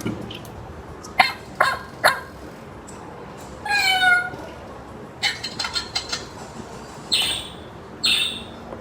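Recorded pet sounds played one after another from a children's sound book's buttons: a few short sharp sounds, one pitched animal call about four seconds in, then a run of short sounds and two louder bursts near the end.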